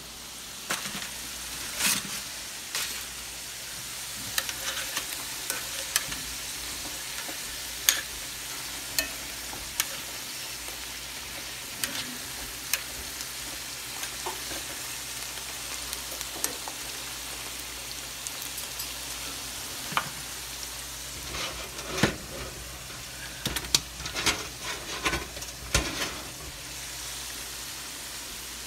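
Potato wedges frying in hot oil in a cast iron skillet: a steady sizzle, with sharp clicks of metal tongs against the pan and potatoes as they are turned, coming thick and fast in the last third.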